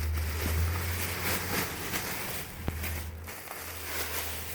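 Rustling and crinkling as dresses are handled and pulled out of a box, with a few sharp clicks and a low steady hum underneath.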